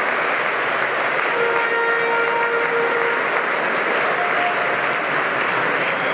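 Badminton spectators applauding steadily after a point. About a second and a half in, a short held tone rises briefly above the clapping.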